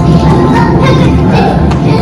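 Background music with a jingling percussion part, loud and steady.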